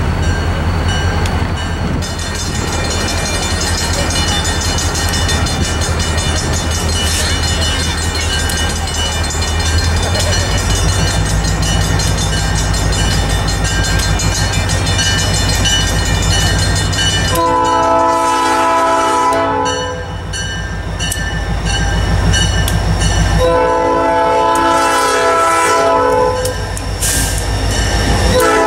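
New York, Susquehanna & Western SD40-2 diesel locomotive approaching and passing close by, its EMD 16-cylinder two-stroke diesel engine rumbling steadily. It sounds its multi-chime air horn in long blasts: one about 17 seconds in, a longer one about 23 seconds in, and another starting at the very end.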